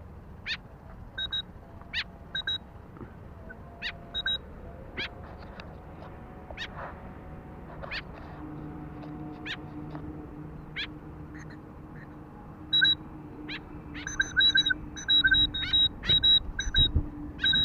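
A white-breasted woodswallow giving short, sharp calls over and over, spaced out at first and coming quickly and more loudly in the last few seconds.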